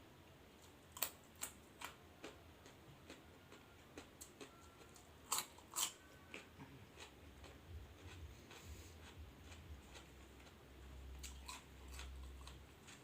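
Close-up eating sounds: a scatter of sharp, crisp bites and crunches, loudest about a second in and again around five to six seconds in, then softer low chewing toward the end.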